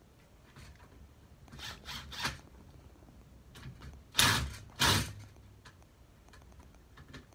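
Cordless drill driving wood screws into a wooden sled runner to tighten down its plastic runner track. A few faint brief runs come about two seconds in, then two louder half-second bursts just after four seconds and just before five.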